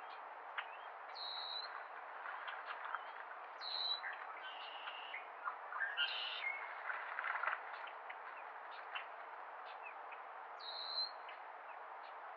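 Small birds chirping: short high notes, the clearest about a second, three and a half and ten and a half seconds in, with a cluster of other chirps in the middle, over a steady background hiss.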